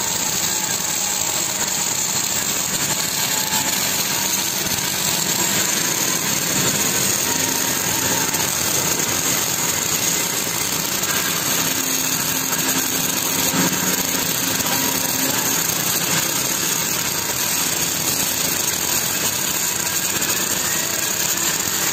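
Electric arc welding on a steel girder plate: the welding arc runs without a break, a steady hiss.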